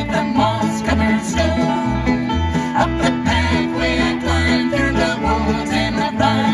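Live acoustic folk band playing an instrumental passage: strummed acoustic guitars and a fiddle melody over a steady bass note about twice a second.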